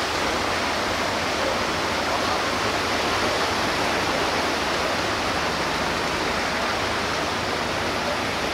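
Steady rushing noise of surf breaking on the beach, with a faint low engine hum under it from the tracked launch tractor towing the lifeboat up the slipway.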